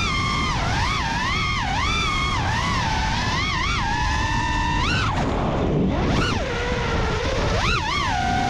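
FPV quadcopter's brushless motors and propellers whining, the pitch swooping up and down quickly as the throttle changes, over a steady rush of wind. About five seconds in the pitch drops low, then climbs again near the end.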